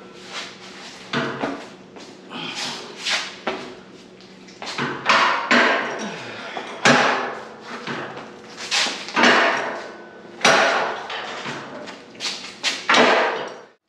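Manual lever-operated tube bender bending steel roll-cage tubing: a dozen or so sharp metal clanks and clicks at irregular intervals, each ringing briefly, as the handle is worked stroke by stroke.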